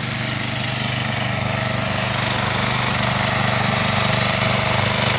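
A large snowblower running steadily, an even engine hum under a constant rush of noise.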